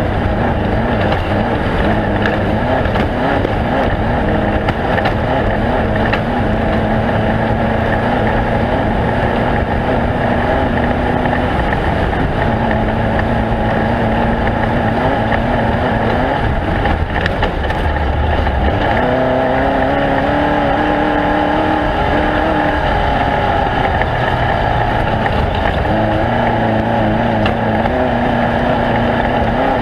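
An off-road race vehicle's engine running hard at speed. Its note holds steady, then dips and climbs again several times: once a little before halfway, more strongly about two-thirds in, and again near the end.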